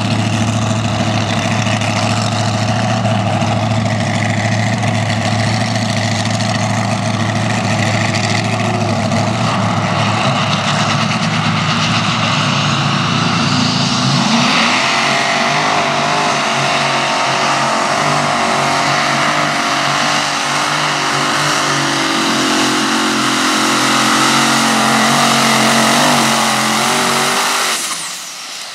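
Multi-engine modified pulling tractor running loud. It holds a steady note for about the first half, then goes to full power with its pitch shifting, and cuts off abruptly near the end.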